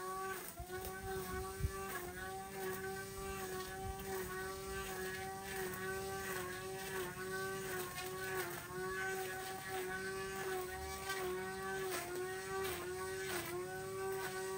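Cordless electric string trimmer running with a steady high whine, its pitch dipping briefly about once or twice a second as the spinning line bites into the weeds.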